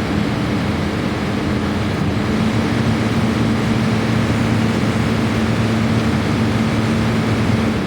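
Friedrich air conditioner running: a steady electric hum over the rush of its fan blowing air. Near the end the hum stops and the sound begins to die away as the unit is switched off.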